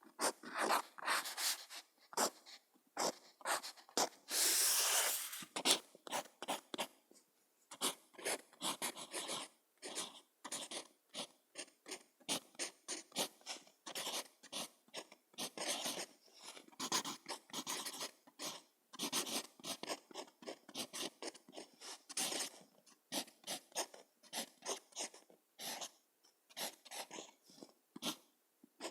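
Pen writing on paper: many short strokes of the nib across the sheet in quick, uneven runs with brief pauses between them, and one longer, louder stroke about four to six seconds in.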